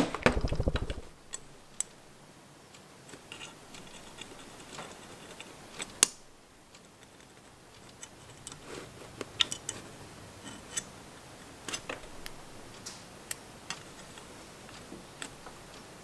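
Light scattered clicks and taps of a multimeter and its test probes being handled against a distributor breaker plate during a continuity check. There is a short low rattle in the first second and a sharper click about six seconds in.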